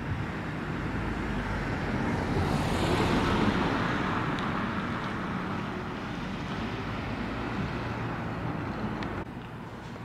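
Traffic noise: a passing vehicle's tyre and engine noise swells to a peak about three seconds in and then fades. The background drops abruptly near the end.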